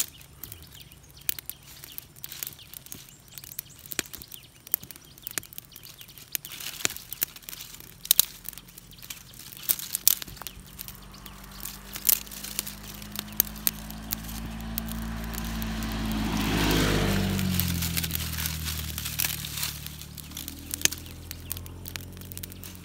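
Small wood campfire of thin sticks crackling, with sharp pops throughout. A low droning hum swells and fades about two-thirds of the way through.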